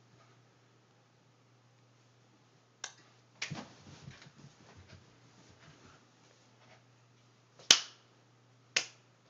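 Four sharp snapping clicks spread over several seconds, the loudest about three-quarters of the way in, over a faint steady low hum.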